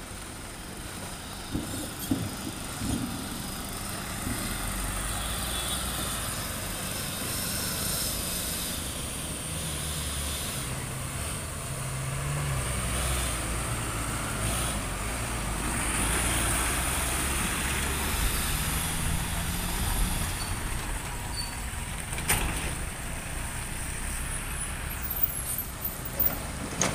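Diesel trucks passing one after another on a hill climb, their engines droning low under load and swelling and fading as each goes by. A steady high whine runs over the top, and there are a couple of sharp clicks.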